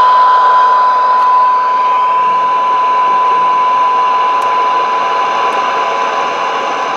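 Mirage 88 CB radio's speaker playing a steady 1 kHz AM test tone buried in receiver hiss, fed from a signal generator whose level is being turned down to a weak signal during a receiver sensitivity test. The tone stays clear through the noise while the overall level eases slightly.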